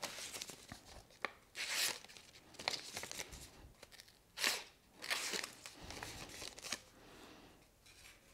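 Freshly honed bench chisel slicing into a sheet of paper in several short, crisp cuts, with paper rustling between them: a test of the edge's sharpness.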